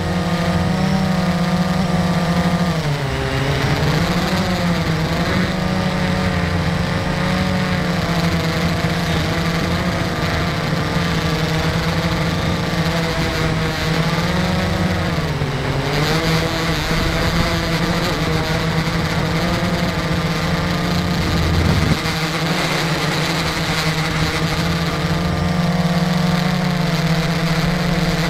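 Drone motors and propellers humming steadily, heard from on board. The pitch sags and recovers twice, about three seconds in and again around fifteen seconds, as the throttle changes.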